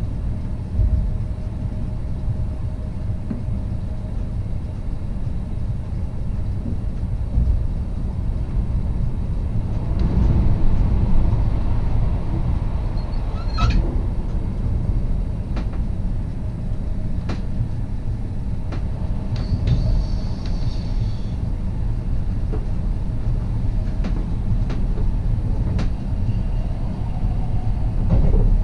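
NSB Class 69 electric multiple unit running along the track with a steady low rumble. About a third of the way in it grows a little louder and sharp clicks from the wheels and rails start to come at irregular intervals.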